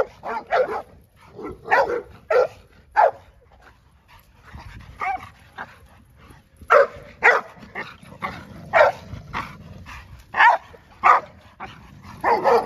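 Several large dogs barking at each other across a chain-link fence in a fence fight. Quick runs of sharp barks, a lull of about two seconds near the middle, then the barking starts again.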